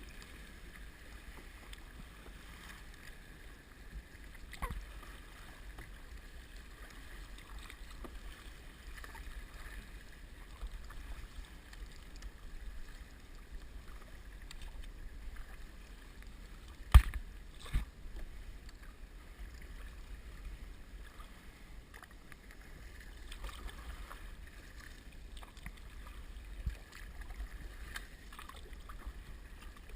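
Kayaking on the sea: a steady low rumble of water and wind on a head-mounted camera, with faint water sounds and a few knocks, the sharpest about seventeen seconds in with a smaller one just after.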